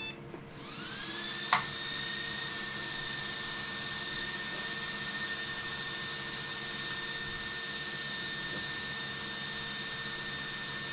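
Powered-up RC model's electronics giving a high electric whine that spins up about half a second in, rising in pitch over about a second and then holding steady, with a hiss over it. A single click about a second and a half in.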